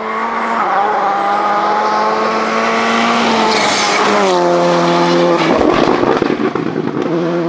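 Volkswagen Polo GTI R5 rally car's turbocharged four-cylinder engine running hard at high revs, then the pitch dropping in steps about four seconds in as it comes off the throttle and shifts down. A rough, crackling stretch follows, before the engine settles on a steady note again near the end.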